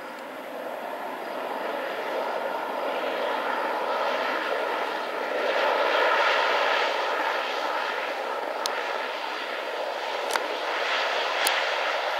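Bombardier Dash 8 Q400's Pratt & Whitney PW150A turboprop engines and propellers running as the airliner rolls along the runway after landing. The sound is a steady drone with several held tones, growing louder as it passes and loudest about halfway through. A few sharp clicks come near the end.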